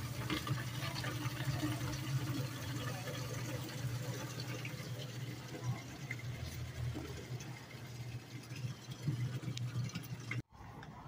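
Water from a coin-operated water vending machine's nozzle pouring in a steady stream into a plastic gallon jug, over a steady low hum. The sound stops abruptly near the end.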